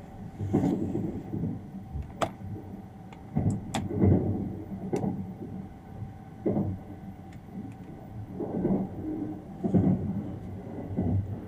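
Sunrise Izumo sleeper train running, heard inside a compartment: uneven low rumbling swells with scattered sharp clicks and creaks, over a faint steady hum.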